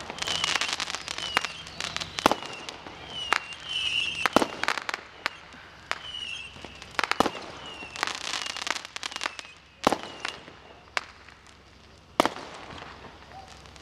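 Consumer fireworks going off: irregular sharp bangs from small aerial shells, with bursts of fast crackling and short high whistles in between.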